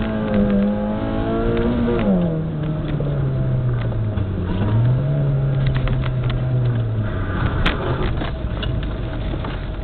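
Car engine heard from inside the cabin. It pulls at high revs, then the revs drop sharply about two seconds in, climb again around five seconds and ease off after about seven seconds. A sharp click comes near eight seconds.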